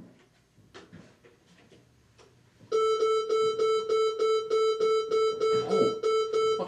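A telephone ringing: a steady electronic ring that pulses about three to four times a second and starts suddenly about two and a half seconds in, after a few faint clicks.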